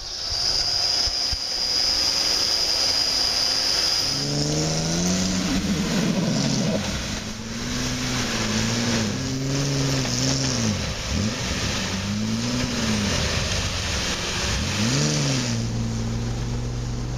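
Off-road 4x4 engines revving, the pitch repeatedly climbing and dropping with the throttle. The first few seconds hold a lower steady engine hum with a thin high whine.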